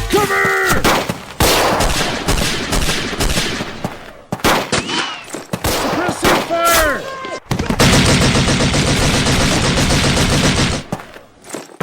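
Battle gunfire sound effects: rapid rifle and machine-gun shots in ragged volleys, with a few brief shouts. About eight seconds in comes one long unbroken burst of machine-gun fire lasting about three seconds, which cuts off suddenly.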